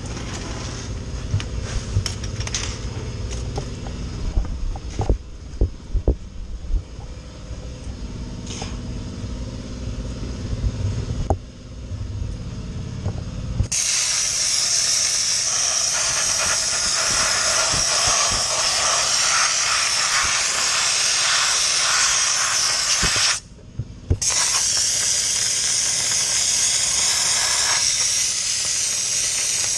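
A low rumble with scattered knocks and clicks, then a dry ice blasting gun starts firing: a loud steady hiss of compressed air driving dry ice pellets onto a car's front suspension. It stops for about a second near the end, then starts again.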